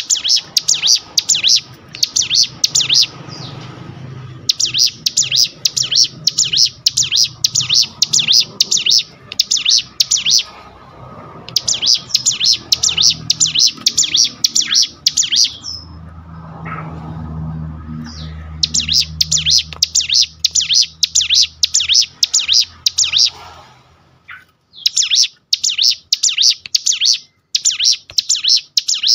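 Caged prinia (ciblek gunung) singing loudly: rapid, sharp, high notes run together into long phrases of several seconds, with short pauses between phrases. A faint low rumble sits underneath midway.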